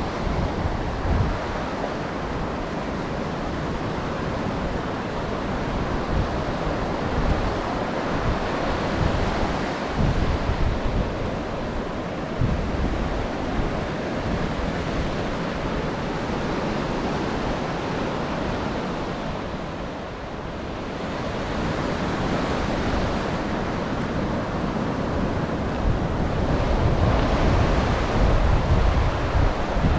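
Ocean surf breaking and washing up the beach in steady swells, with wind buffeting the microphone.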